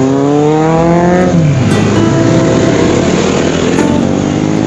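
A group of motorcycles accelerating past one after another. One engine's pitch climbs steadily as it revs up, then drops sharply a little over a second in, and a dense mix of several bikes' engines follows.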